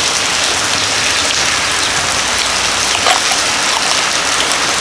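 Steady rain falling, an even hiss with the odd close drop ticking through it.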